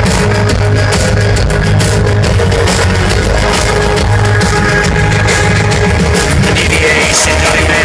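An industrial band playing live at full volume, drums and a heavy bass pounding under a dense wall of sound, recorded from within the crowd.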